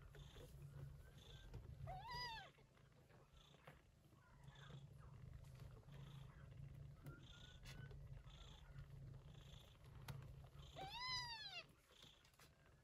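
Cat purring, a low steady rumble, with two high-pitched kitten mews, one about two seconds in and one near the end. Each mew rises and then falls in pitch.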